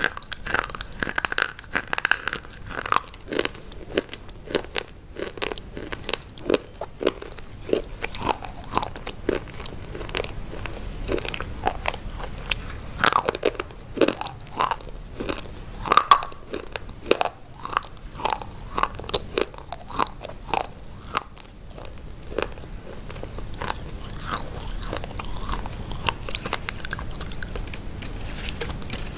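Close-miked biting and chewing of hard, chalk-like white sticks: many sharp crunches and snaps in quick succession, giving way to softer, denser chewing in the last several seconds.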